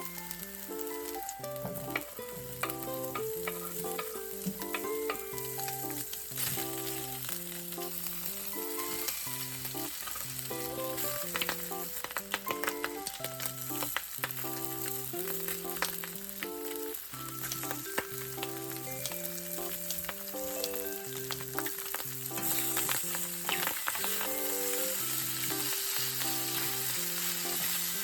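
Food sizzling as it fries in a hot pan, with scattered clicks of a utensil stirring it, under a light, bouncy background music track.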